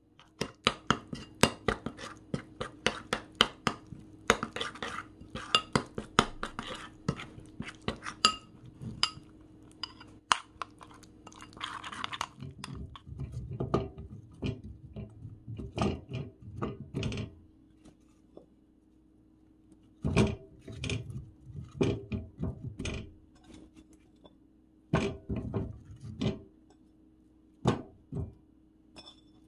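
A metal spoon clinks and scrapes rapidly against a ceramic bowl as a thick pepper-paste sauce is stirred. From about 13 seconds in, chunks of raw white radish are set down one after another in a stainless steel pot with duller knocks. A faint steady hum runs underneath.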